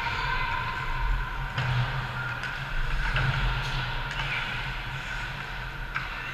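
Ice hockey rink sound during play: skates scraping the ice and a few sharp clacks of sticks and puck, over a steady low rumble and hum of the arena.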